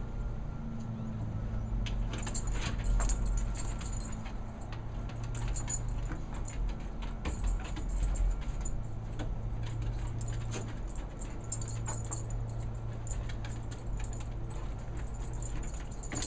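A dog's collar tags jingling and its claws clicking on wooden deck boards as it moves through its tricks, over a steady low hum.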